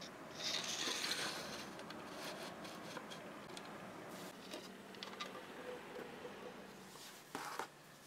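Clear plastic sheet rustling as it is handled, loudest for under a second about half a second in. A few small clicks and taps follow.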